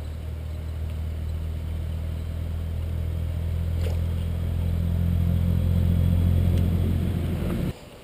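A low, steady engine drone that slowly grows louder, then cuts off abruptly near the end.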